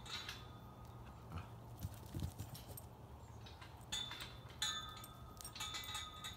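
Faint, scattered footfalls and scuffs of a goat's hooves and a dog's paws on dirt and straw as the two animals move about.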